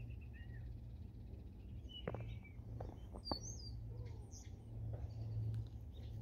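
Small songbirds chirping now and then: a few short high chirps and a brief whistled glide around the middle, over a steady low background hum.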